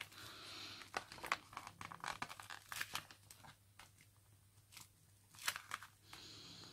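Paper rustling and crinkling as a plastic ruler is rubbed and pressed along the folded edge of glued decoupage paper, with scattered small clicks and scrapes.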